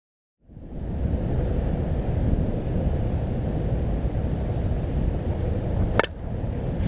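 Steady low outdoor rumble that starts about half a second in, with one sharp crack about six seconds in.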